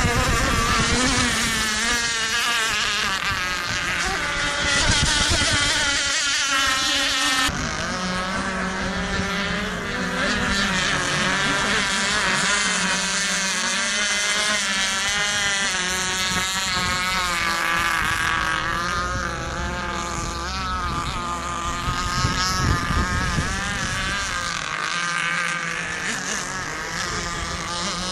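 Radio-controlled model racing boats running flat out, their small motors giving a high, wavering buzz whose pitch rises and falls as the boats race and turn, with the hiss of spray and water.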